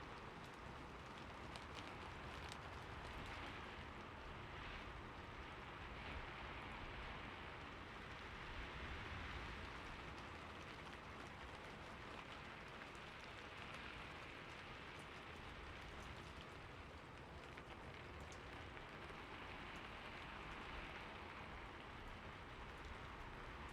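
Steady rainfall pattering on leaves and ground in a forest, an even hiss with scattered soft drop ticks.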